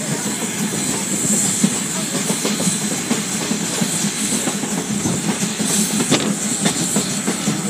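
Steam-hauled train running, heard from the open car right behind the tender: steady rumble of wheels on the rails under a constant hiss of steam, with a few sharp clicks about six seconds in.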